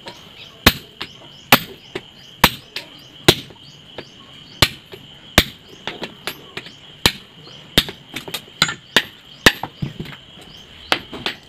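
Hammer blows on red-hot steel held in tongs on an anvil, forging an adze (basula) blade: a loud sharp strike roughly once a second, with lighter taps between the heavy blows.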